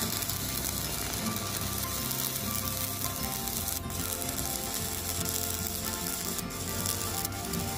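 Stick (MMA) welding arc burning a 3.2 mm electrode on steel, powered by an inverter welder. It gives a steady crackling sizzle throughout.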